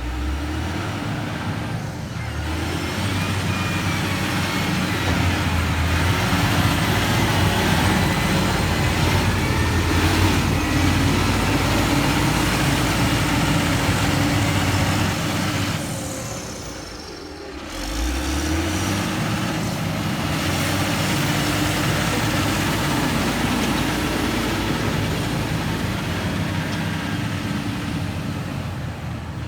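Diesel engine of heavy construction machinery running steadily under load. About sixteen seconds in it drops away, then rises again with a climbing pitch as the engine revs back up.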